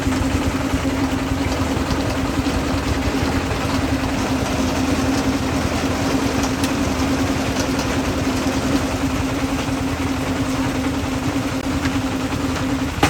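Concrete mixer's engine running steadily with a constant hum, which cuts off suddenly at the very end.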